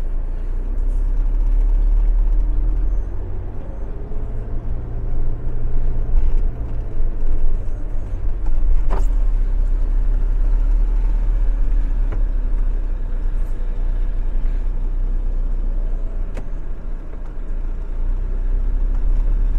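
Motorhome engine running with a steady deep rumble as the van drives slowly, its pitch wavering a little. Two brief sharp clicks come through partway along.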